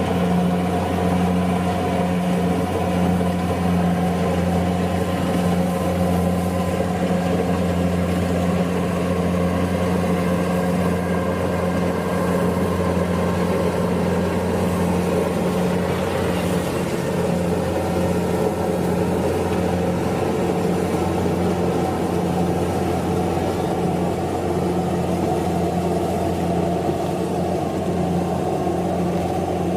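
Kubota DC-70 combine harvester running steadily, its diesel engine holding a constant, even drone with no revving.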